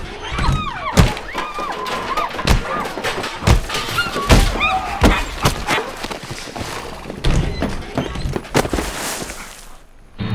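A fight in a saloon: a rapid string of thuds, thumps and crashes with things breaking and smashing, and raised voices crying out in the first half.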